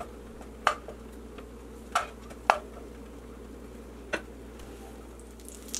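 Butter and sesame oil heating in a nonstick pan, with a few sharp ticks and pops over a faint steady hiss as the butter melts.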